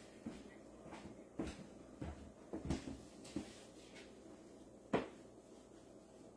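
A few faint, scattered knocks and clicks from someone moving about and handling things, with one sharper click about five seconds in.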